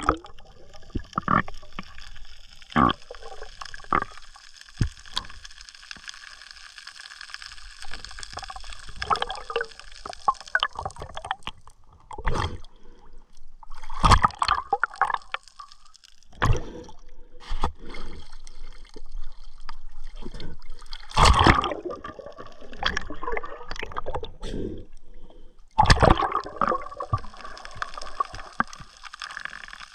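Underwater water sounds as a spearfisher swims: gurgling and bubbling water around the camera, with irregular knocks and clicks and a few louder surges of bubbling about 14, 21 and 26 seconds in.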